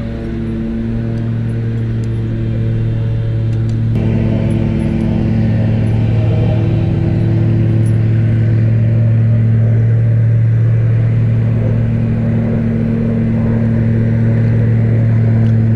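Steady, loud hum of a small motor running at constant speed, its tone shifting slightly about four seconds in.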